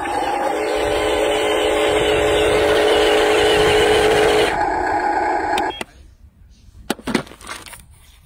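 Radio-controlled truck and wheel loader running, their motors and gearing giving a steady whine; a second, lower whine joins about half a second in. It drops away and cuts off about six seconds in, leaving a few faint clicks.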